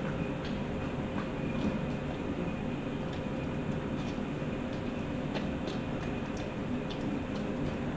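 Afghan hound eating from a bowl: faint, scattered clicks and smacks of chewing and of teeth on the dish, over a steady low rumble with a faint steady hum.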